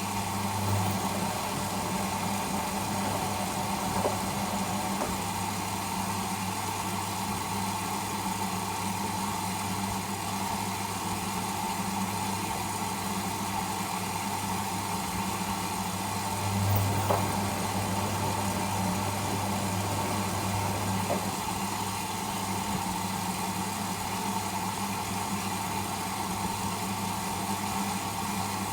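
Whirlpool Indiana 1400 front-loading washing machine running mid-wash: a steady motor hum with a constant drone, swelling briefly about a second in and again about 17 seconds in, with a few faint clicks.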